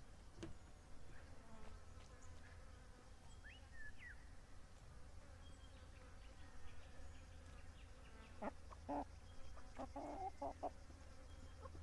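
A rooster clucking: a quick run of about six short clucks in the last third, over a faint low rumble, with a few thin bird chirps earlier.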